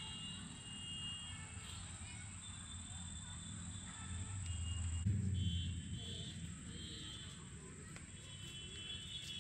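Outdoor ambience: a steady high-pitched drone, scattered short faint tones, and a low rumble that swells about halfway through.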